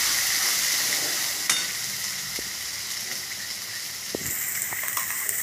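Ground masala paste sizzling in hot oil in a kadai as it is stirred with a steel spatula, with a few sharp taps and scrapes of the spatula on the pan.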